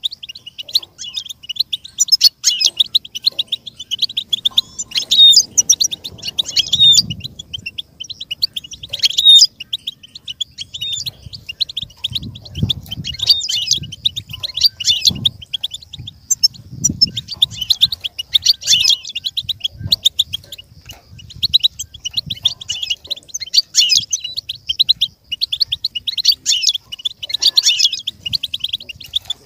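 European goldfinch song: a fast, nearly unbroken run of high twittering and tinkling notes.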